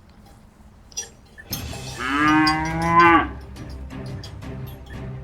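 A cow mooing once, one long call about two seconds in. Background music with a steady beat comes in partway through.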